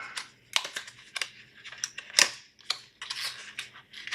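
Packaging being handled, with an irregular run of rustling and sharp clicks as the adapter is taken out of its box.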